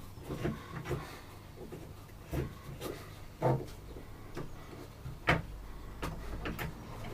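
Small clicks and knocks of hardware being handled and screwed into place on a saw, with two louder knocks about three and a half and five seconds in.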